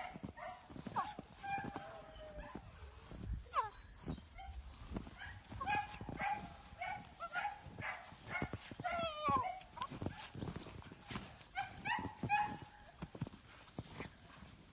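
A 12-week-old German Shepherd puppy whining and yipping: a string of short high-pitched cries, some sliding down in pitch, with a longer wavering whine about nine seconds in. Scattered knocks and clicks run between the cries.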